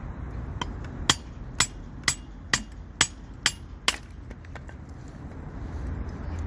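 Seven sharp hammer strikes, about two a second, on a portable firewood splitter, then they stop.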